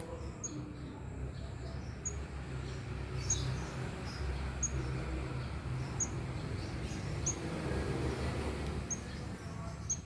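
Fledgling brown-throated sunbird giving short, sharp, high-pitched chirps roughly once a second, over steady background noise.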